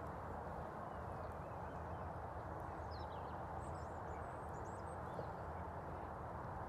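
A horse's hooves moving over the ground under a steady rushing noise, with a few faint high chirps about halfway through.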